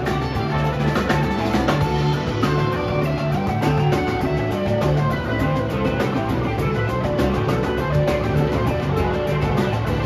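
Live rock band playing an instrumental jam: electric guitars over a steady bass line and drum kit, with hand drum and harmonica.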